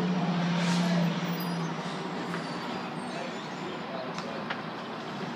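2008 Spartan Gladiator fire engine's diesel engine running as the truck moves slowly past. A steady low drone stands out for the first second and a half, then fades into the engine and road noise.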